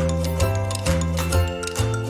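Instrumental background music with a steady beat, its bass notes changing about twice a second under light plucked and percussive sounds.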